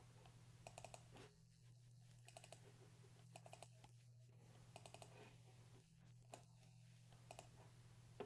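Faint clicks of a computer mouse and keyboard in short clusters every second or so, over a low steady hum.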